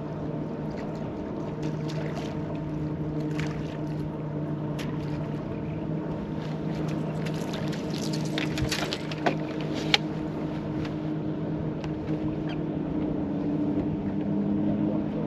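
Steady hum of a bass boat's bow-mounted electric trolling motor over the lap of water on the hull, its pitch shifting slightly near the end. A couple of sharp clicks or knocks come about two-thirds of the way through.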